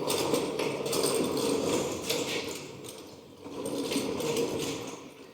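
Lawnmower being pulled along by hand: irregular clicking, rattling and knocking from its wheels and loose parts, easing off briefly about three seconds in.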